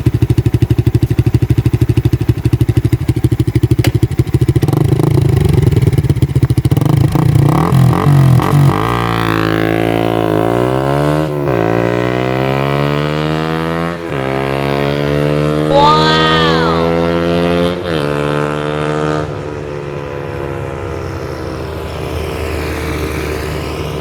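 Suzuki Raider 150 Fi's single-cylinder engine, its exhaust silencer in place, idling close by with a steady pulse. About eight seconds in it revs up and pulls away, its pitch rising through each gear with short dips at the shifts, then fades into the distance. A brief high chirp sounds about two-thirds of the way through.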